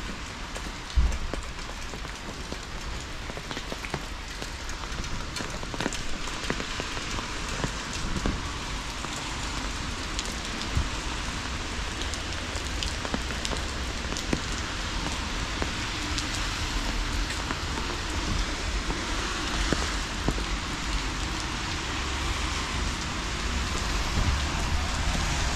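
Steady rain falling, with many separate drop hits heard as small clicks over an even hiss. A single low thump about a second in.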